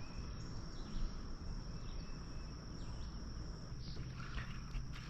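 Insects droning steadily at one high pitch, over a low even rumble.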